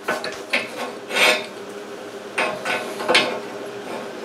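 Steel brackets and fittings clinking and scraping against each other and against a steel tube go-kart frame as they are positioned by hand: several short clinks, a longer scrape about a second in, and more clinks around two and a half to three seconds, over a low steady hum.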